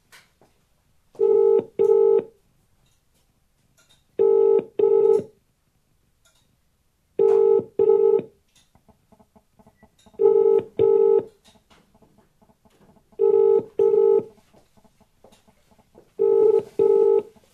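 British telephone ringing tone heard through a phone's speaker: six double rings, about three seconds apart, as the call to the police rings out unanswered.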